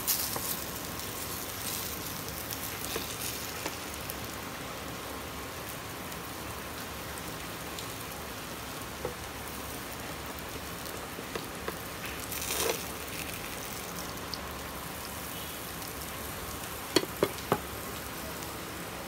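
Food sizzling steadily in hot oil in a frying pan. A brief louder flare comes about twelve seconds in, and three sharp clicks come close together near the end.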